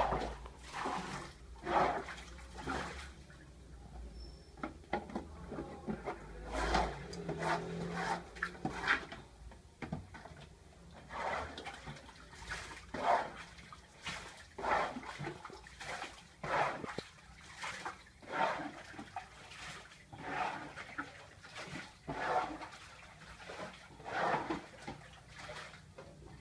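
Domestic goose, legs tied, lying on the floor and making short, breathy, hissing sounds, one every second or two.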